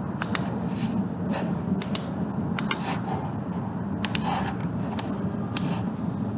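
Computer mouse clicking in short, sharp clicks, mostly in quick pairs, about six times, over a steady low background hum.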